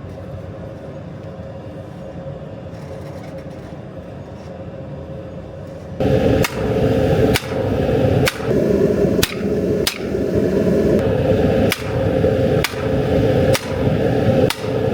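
Hammer blows on hot steel at the anvil, about one a second, starting about six seconds in, over a steady rushing noise.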